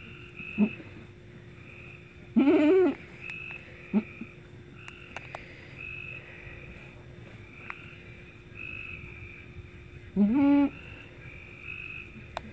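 Goats calling in the kidding pen, from a doe in labour and her newborn kid: a longer bleat that rises then falls about two and a half seconds in and another near the end, with two short grunt-like calls between. A faint high chirp repeats steadily in the background.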